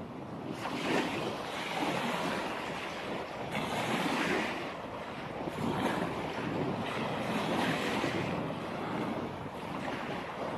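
Sea waves washing onto a beach: a steady rush of surf that swells and eases every couple of seconds.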